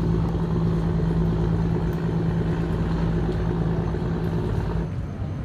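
A motor running with a steady, even hum over a low rumble; the hum stops about five seconds in.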